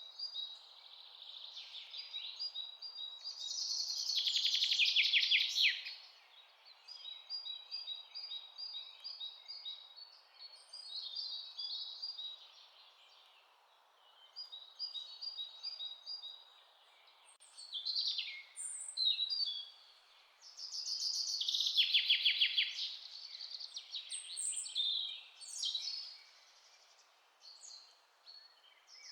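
Songbirds singing: many short high chirps and repeated notes, with a loud rapid trill twice, once early on and again about three-quarters through, over a faint steady hiss.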